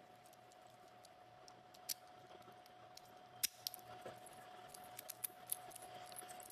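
Faint, scattered small metallic clicks and taps from a freshly cut key and its clamp being handled. They come more often from about two seconds in, over a faint steady hum.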